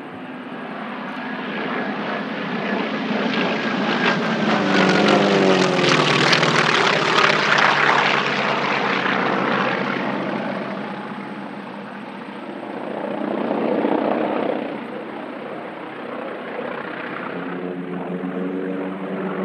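Two North American T-28 Trojans' radial engines and propellers droning past in formation. The sound swells to its loudest about a third of the way in, its pitch falling as they pass. It fades, then swells again more briefly and rises once more near the end.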